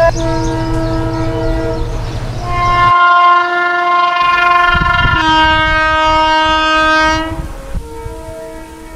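Indian Railways locomotive horns, from electric and diesel locomotives, spliced one after another. There are about four multi-tone horn blasts, each at a different pitch and changing abruptly, with the last one fainter, over the rumble of the moving trains.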